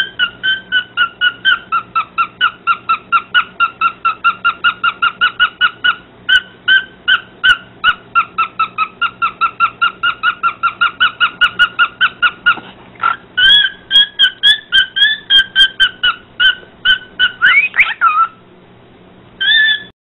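Cockatiel giving a long run of short, rapid chirps, about five a second, with a brief pause past the middle and a rising note before it stops; one last chirp comes just before the end.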